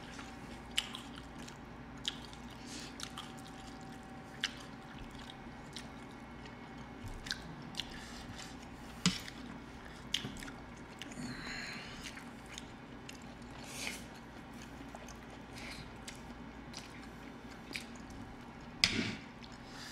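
People eating noodles: chewing and slurping, with scattered small clicks of metal chopsticks against plates, over a steady low hum.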